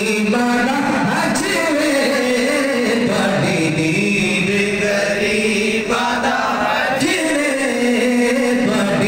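A male voice sings a Punjabi naat unaccompanied through a microphone, in long melismatic phrases. Underneath it, other men hold a steady low chanted drone.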